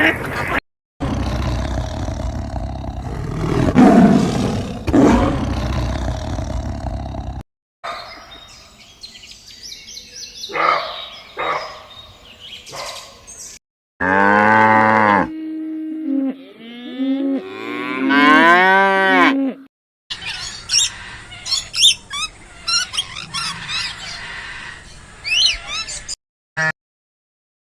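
Cattle mooing across several short clips joined by abrupt cuts, with short high chirping calls in the last few seconds.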